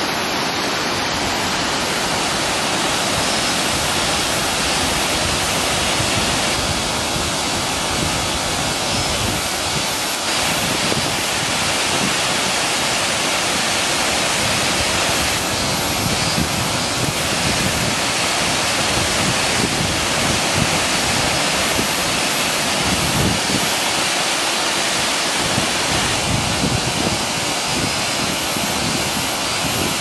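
Waterfall dropping in several streams into a deep plunge pool: a steady, even rush of falling water.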